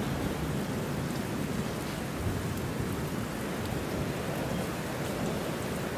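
Steady rushing noise, a low rumble with a hiss above it, that stays even throughout.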